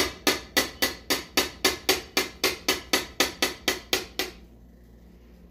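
A fast, even series of sharp taps or knocks, about four a second, which stops after about four seconds.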